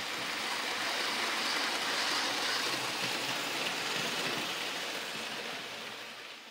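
OO-gauge model train running past on the track, a steady rolling rumble and hiss of wheels on rail that swells and then fades away near the end.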